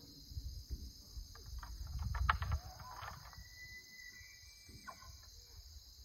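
Bull elk bugling: a call rises about two seconds in and climbs into a long, high whistle that steps up slightly before breaking off about five seconds in. A low rumble and a steady high insect chorus run underneath.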